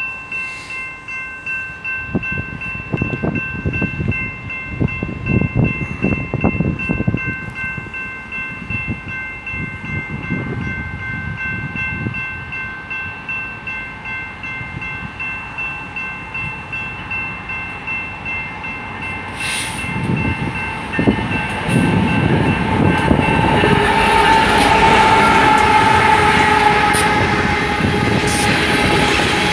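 Railroad grade-crossing warning bell ringing steadily as a loaded BNSF coal train approaches. About three-quarters of the way through, the train reaches the crossing and the sound grows much louder as the locomotives and loaded coal hoppers roll past.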